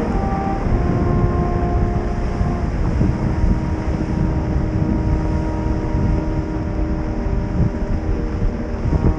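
Steady low rumble with wind buffeting the microphone. Several sustained tones run over it and shift pitch in steps a few times, like held notes of background music.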